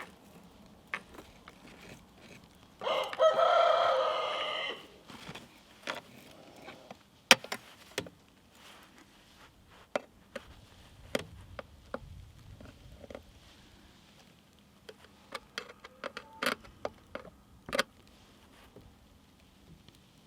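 A rooster crows once about three seconds in, a single call of roughly two seconds that fades at the end. Around it come scattered small clicks and scrapes.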